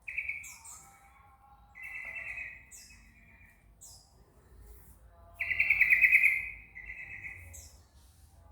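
White-eye (pleci) singing: three buzzy, rapidly trilled phrases with short, very high chirps between them, the loudest phrase about halfway through.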